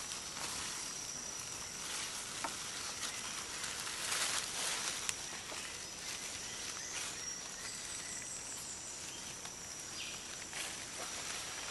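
Dry leaf litter rustling and crackling as young orangutans roll and wrestle on it, loudest about four to five seconds in, over a steady high-pitched insect drone.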